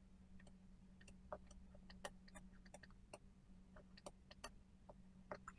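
Faint, irregular tapping and clicking of a stylus pen on a tablet screen during handwriting, over a faint steady hum.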